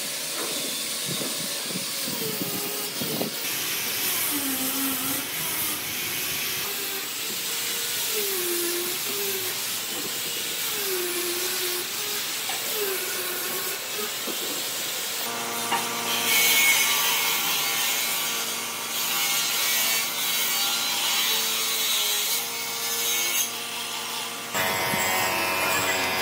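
Wood being worked with repeated rubbing or sawing strokes, about one every two seconds. About halfway through, a small electric power tool starts running steadily with a hiss, until near the end.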